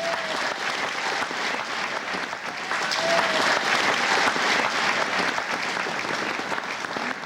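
Audience applauding, many people clapping steadily in a hall, swelling in the middle and tailing off near the end.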